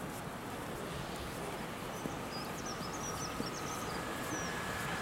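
Steady low outdoor background hum with small birds chirping faintly in the middle. From about two seconds in, a faint steady high whine builds slowly: the first sound of a Hamburg U-Bahn train approaching round the curve.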